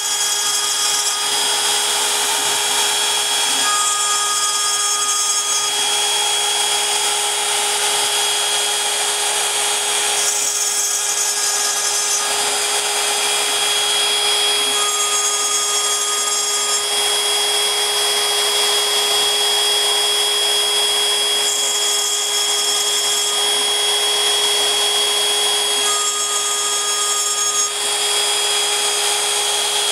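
Fireball V90 CNC router's spindle running with a steady high whine while the bit cuts a small propeller. The cutting noise changes character every few seconds as the tool moves along its path.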